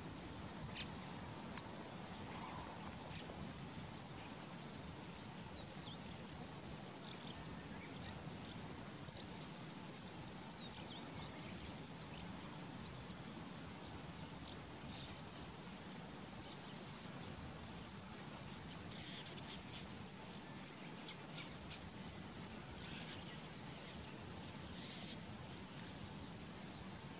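Wild birds chirping now and then, short high calls scattered through, with a quick run of three sharp chirps about three-quarters of the way in, over a faint steady low background hum.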